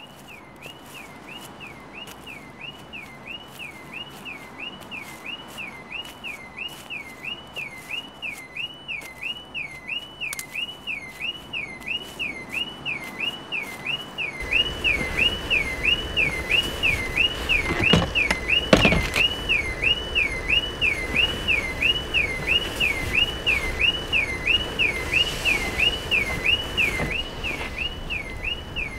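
Car alarm siren wailing up and down nearly twice a second, growing steadily louder. A low rumble joins about halfway through, and two sharp knocks sound a little past the middle.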